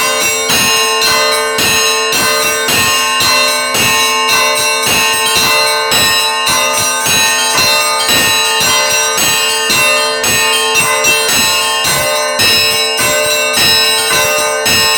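Church bells rung close up, struck over and over at about two strokes a second, the bells' deep tones ringing on between strokes.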